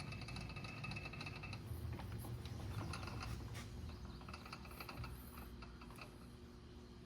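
Metal lathe running at reduced speed with a parting tool cutting into a welded steel PTO yoke. A steady low hum carries throughout, with a high whine that stops about a second and a half in, followed by scattered light clicks.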